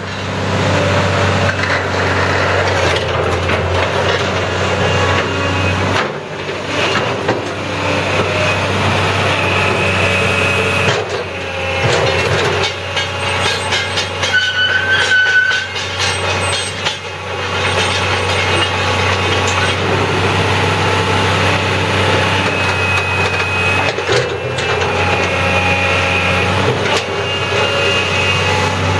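Mitsubishi MS180LC-3 excavator's diesel engine running steadily, with occasional metallic clanks and knocks from the machine working.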